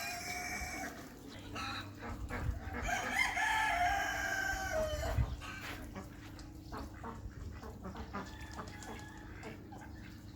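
Rooster crowing once, a long call of about three seconds that ends on a falling note, followed by softer short clucking calls and a faint steady hum.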